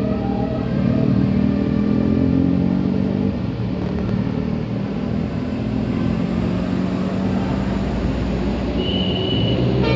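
Road traffic passing on a roadside bend: a heavy vehicle's engine hums loudly for the first few seconds, then eases off into steady road noise. A short high beep sounds near the end.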